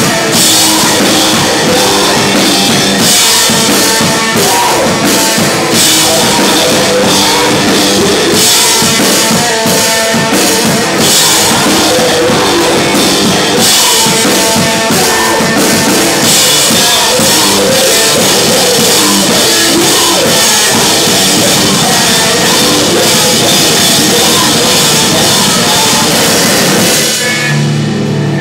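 Live rock band playing loud: electric guitar and drum kit. About a second before the end the drumming stops and a low held note rings on.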